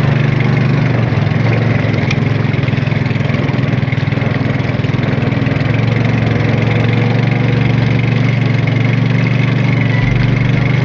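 The engine of a motorized wooden outrigger boat (bangka) running steadily underway as a low, even drone, dipping slightly in pitch about halfway through.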